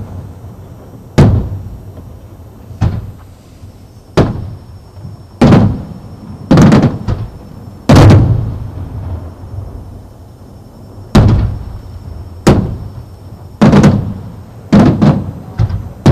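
Aerial firework shells bursting: about a dozen loud bangs at irregular intervals of one to two seconds, each followed by a low rolling echo.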